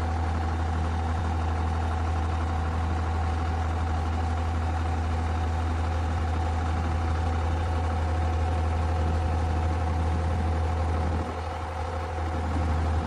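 Crawler-mounted solar pile driver's Cummins 75 kW diesel engine running steadily at idle, with a dip in level about eleven seconds in.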